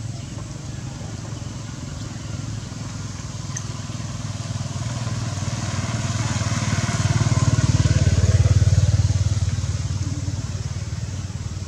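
A motor vehicle's engine passing by, growing louder to a peak about eight seconds in and then fading.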